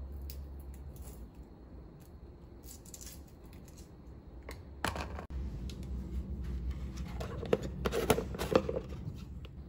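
Garlic cloves being peeled by hand after soaking in water: soft papery tearing and small clicks. From about five seconds in comes busier clicking and rustling as the cloves and a plastic strainer container are handled.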